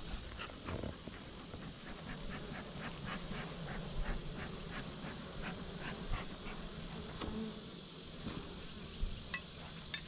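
Honeybees buzzing over an opened hive: a steady hum, with individual bees now and then flying close by.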